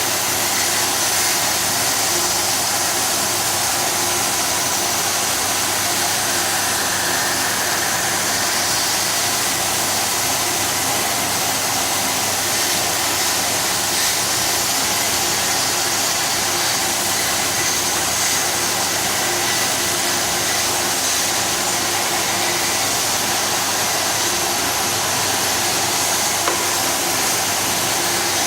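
CNC plasma cutting machine running: a steady loud hiss with a faint high whine, unchanging throughout.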